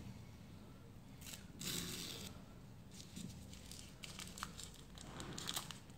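A machine-filled cigarette's paper tube being torn open by hand, a soft crackling rustle of paper and loose tobacco, loudest about one and a half to two seconds in, with a few small crinkles later.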